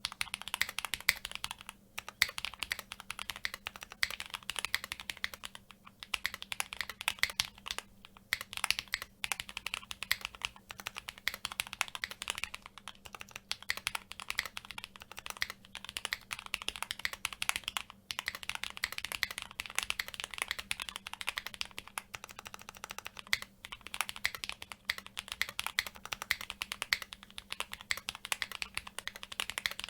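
Fast, continuous typing on a TKD Cycle7 mechanical keyboard with an FR4 plate and GMK keycaps: rapid key clicks and clacks with a few brief pauses.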